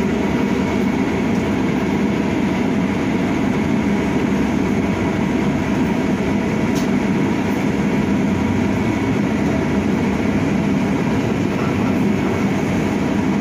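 Cabin of an Ursus CS12E battery-electric city bus under way: steady rolling and drive noise, with a faint steady whine from the electric drive.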